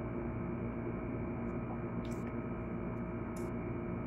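Steady electrical-sounding hum, with two short, sharp mouth clicks of someone eating by hand, about two seconds and three and a half seconds in.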